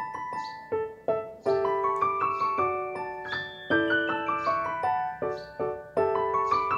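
Background piano music: a light melody of single struck notes, a few a second, each ringing and fading away.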